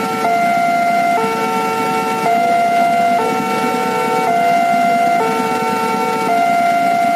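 Electronic warning alarm at a railway level crossing on Jakarta's KRL commuter line, switching back and forth between two tones about once a second, which warns that a train is approaching. Road traffic can be heard under it.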